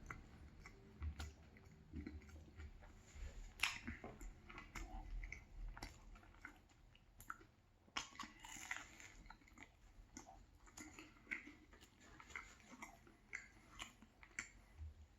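Close-miked chewing and biting of a banh mi sandwich: quiet, irregular crunches and wet mouth clicks, with one sharper crunch a few seconds in.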